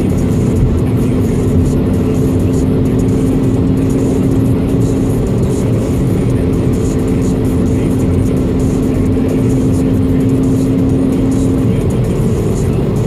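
Road and engine noise inside a car cruising on a motorway: a steady rumble with a steady low hum that stops near the end.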